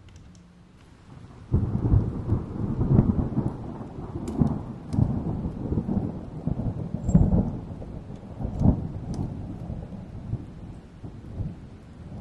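Thunder rumbling: a rolling crash that starts suddenly about a second and a half in, then rolls on in uneven swells.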